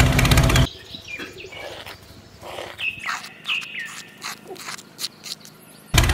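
Birds chirping, with several short falling chirps, over faint clicks and scrapes of a small shovel scooping dry cement mix. An idling engine cuts off about half a second in and comes back just before the end.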